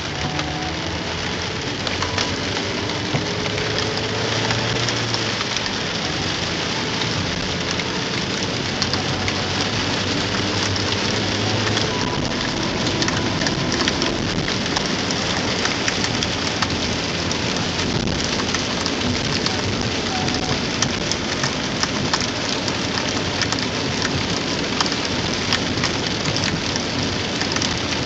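Heavy rain pelting a car's roof and windshield, heard from inside the cabin: a steady loud hiss thick with sharp drop impacts.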